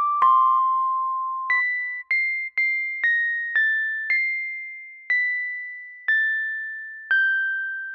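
Background music: a slow melody of single struck notes, one at a time, each ringing out and fading before the next.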